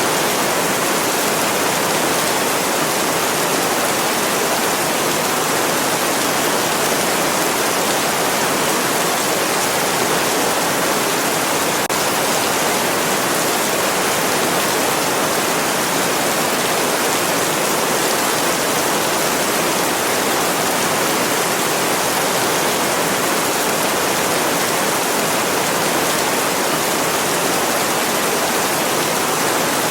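Steady, even rushing hiss of heavy rain played as a sleep white-noise track, with no single drops or changes standing out.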